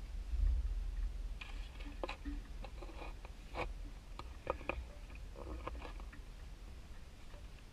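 A spade being worked into wet, muddy soil under a water pipe: scattered scrapes and knocks, after a brief low rumble about half a second in.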